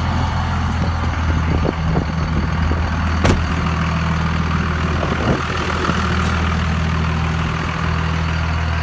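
Dodge Ram's 24-valve Cummins inline-six diesel idling steadily, with one sharp click about three seconds in.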